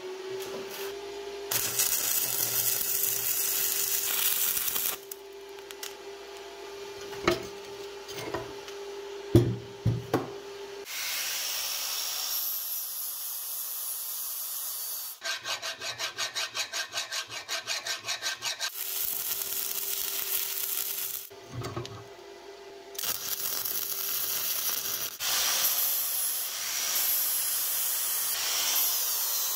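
Angle grinder with an abrasive disc grinding down weld on the body of an old vise, cutting in and out over several passes, with a few sharp knocks about a third of the way in and a fast regular pulsing near the middle.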